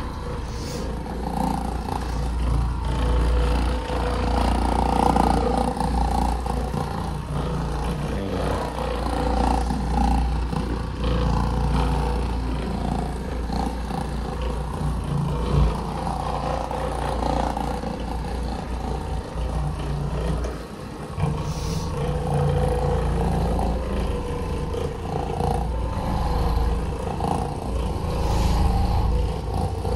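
Electric floor machine running, its motor humming steadily as the pad scrubs the carpet, with the level swelling and easing as it is moved about and briefly dropping about two-thirds of the way through.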